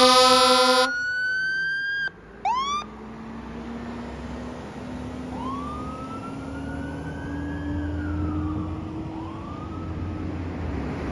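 Fire truck pulling out on a call: air horn blasts cut off about a second in while a siren glides up, then two short electronic siren yelps, and the siren wails more faintly as it moves away over the low rumble of the diesel engine pulling away under load.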